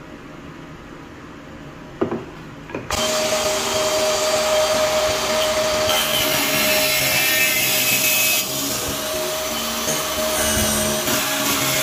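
A homemade mini table saw starting up about three seconds in and running with a steady whine. Its spinning blade cuts up through a plywood strip held over the blade opening, harsher between about six and eight seconds in.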